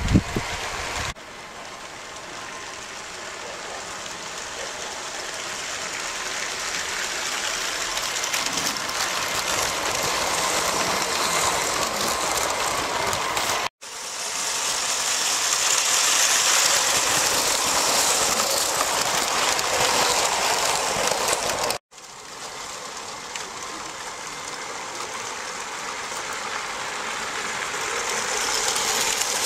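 LEGO model trains running on plastic LEGO track, an even rolling noise that grows louder as each train comes closer. The noise breaks off abruptly twice, at cuts between shots.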